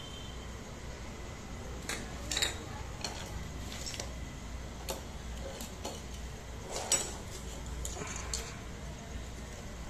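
Scattered light metallic clicks and taps, about ten of them at uneven gaps, the loudest about seven seconds in, over a low steady hum.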